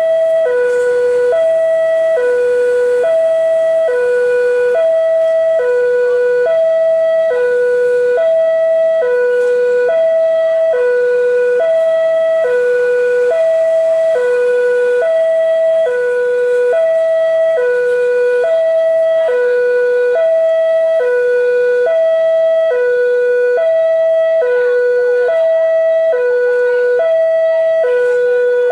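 Railway level crossing warning alarm sounding: an electronic signal alternating steadily between a low and a high note, about one low-high pair a second. It signals that a train is approaching the crossing.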